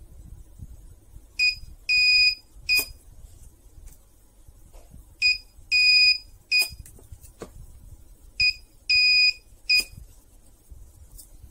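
Portable spot welder beeping as it fires while nickel strip is welded onto 18650 lithium cells. Three times it gives a short, a long and a short beep, and each group ends with a sharp snap of the weld pulse.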